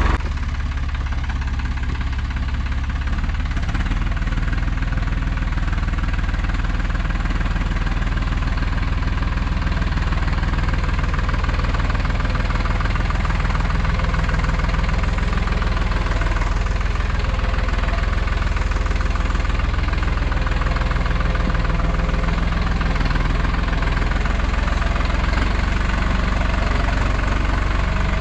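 Hattat 4x4 tractor's diesel engine running steadily, its speed holding even with no revving.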